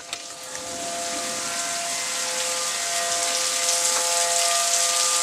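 Outdoor tornado warning siren sounding a steady multi-tone wail, malfunctioning after a lightning strike set it off with no warning in effect. A hiss underneath grows steadily louder.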